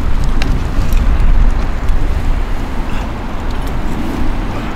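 Low, steady rumble of wind buffeting the microphone, with a couple of faint clicks.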